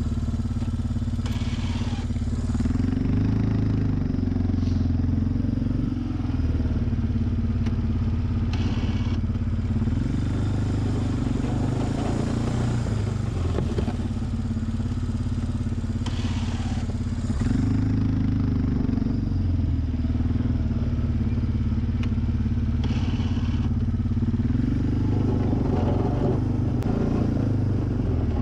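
2004 Suzuki Eiger 400 ATV's single-cylinder four-stroke engine running while it pushes snow with a front plow blade. The engine speeds up and settles back about every seven seconds, with brief hissing sweeps in between.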